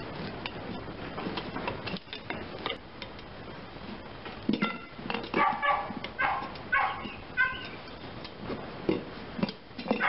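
Two screwdrivers prying the bead of a 15x6.00-6 lawn tractor tire off its rim: scattered clicks and scrapes of metal against the rim and rubber. About halfway through, an animal gives five or so short, loud calls in quick succession.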